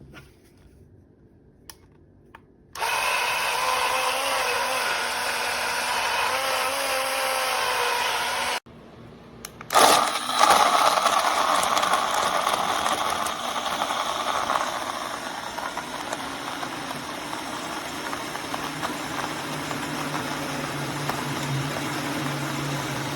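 Small battery-powered portable blender's motor running, in two runs. The first lasts about six seconds with a wavering pitch and cuts off suddenly. After about a second's pause it starts again and keeps running steadily.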